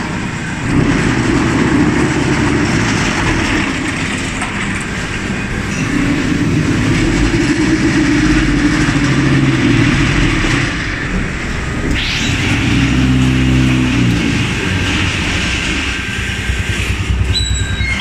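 Concrete block-making machine running: a loud, steady mechanical drone with a low hum that comes and goes in spells of several seconds.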